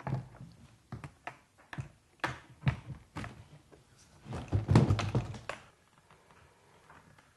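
Irregular knocks and thumps from the wooden wall panels of a portable photo booth being handled and hooked together during assembly, with a denser, louder clatter about four and a half seconds in.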